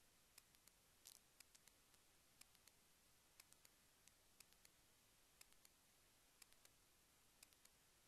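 Near silence with faint, sharp clicks, about two a second at irregular spacing, over a low steady hiss.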